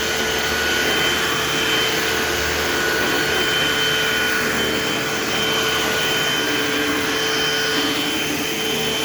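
Eureka AirSpeed AS1101 upright vacuum cleaner running steadily on a floor, a constant motor whir with a steady whine, picking up dirt and debris.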